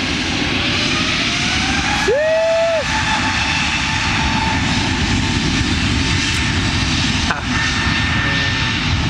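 Airbus A321's twin jet engines spooling up to takeoff power at the start of the takeoff roll: a steady roar with a whine that climbs over the first three seconds and then holds.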